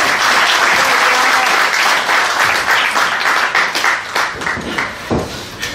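Crowd applauding, thinning out after about four seconds.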